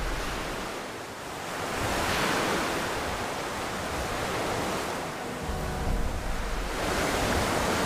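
Sea surf washing onto a beach, a steady rush of waves that swells as a wave breaks about two seconds in and again near the end, with some wind.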